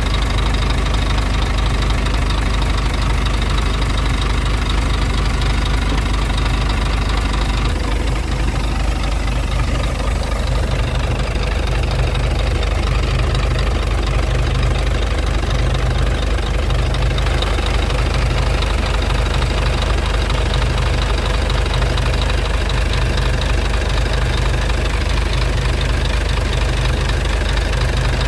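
Scania R truck's diesel engine idling steadily, heard close up at the engine.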